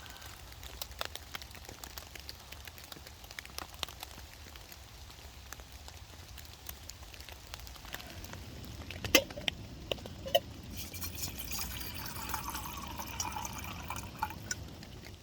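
Water drops tapping at irregular intervals, with a few louder drips about nine seconds in and a denser trickling for the last few seconds, which stops abruptly.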